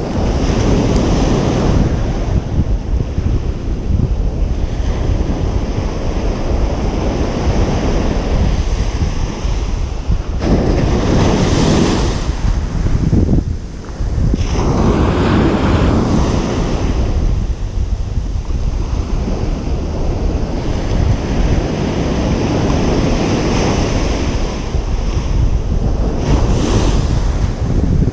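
Ocean surf breaking on a beach: a steady wash of waves, with surges as larger waves break, most clearly about ten to twelve seconds in, around fifteen seconds, and near the end.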